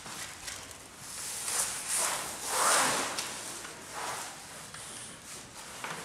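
Foil-faced insulation sheet rustling and crinkling as gloved hands slide it and press it into place against a garage door panel. The rustling comes in uneven bursts and is loudest a little before halfway through.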